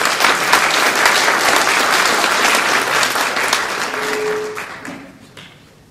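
Audience applauding, dying away about five seconds in with a few last scattered claps.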